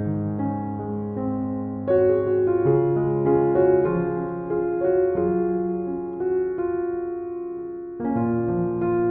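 Soft background piano music: slow, sustained notes and chords, with a new chord struck about two seconds in and again near the end.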